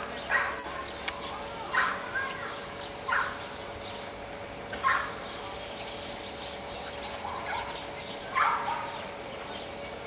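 Ducks calling with short quacks, about five of them spread through, over a steady faint hum.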